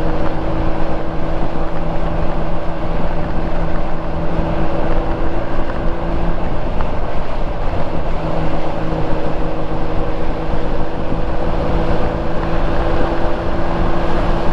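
Honda Gold Wing GL1500's flat-six engine running steadily at cruising speed, mixed with wind and road noise.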